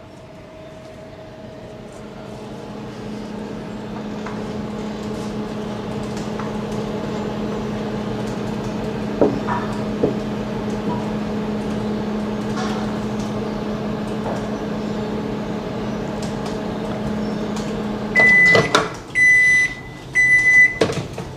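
Microwave oven running with a steady hum through a 30-second heating burst for melting chocolate, then shutting off near the end and beeping three times to signal the cycle is done.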